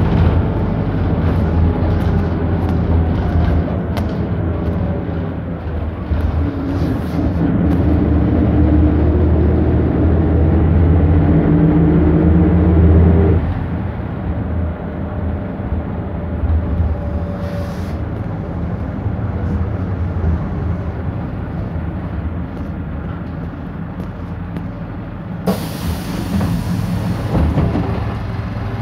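Inside a 1998 Autosan H6-20.03 bus, its Perkins Phaser 110Ti four-cylinder turbo-diesel pulls hard, rising in pitch for several seconds. It drops off suddenly about halfway through and runs more quietly after that. Near the end comes a sharp burst of air hiss from the bus's air brakes.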